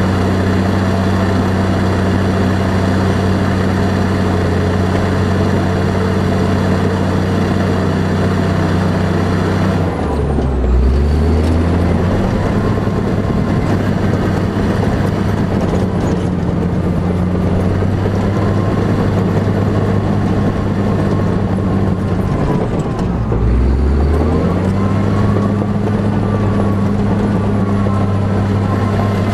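A heavy vehicle engine running steadily. It drops low in pitch twice, about ten seconds in and again about two-thirds of the way through, and each time picks back up to its steady pitch.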